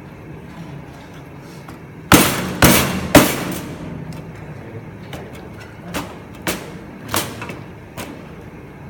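Meat cleaver chopping through a whole raw chicken's backbone onto a plastic cutting board as the bird is split open. Three hard chops about half a second apart come a little after two seconds in, then four lighter chops follow over the next few seconds.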